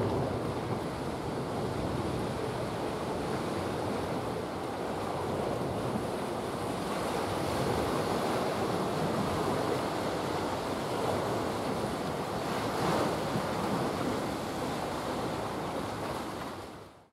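Steady wind and water noise at the waterside, with wind rumbling on the microphone; the sound fades out to silence near the end.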